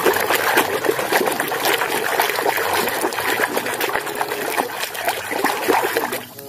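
Water running and splashing steadily as mud is washed off a toy vehicle, stopping abruptly near the end.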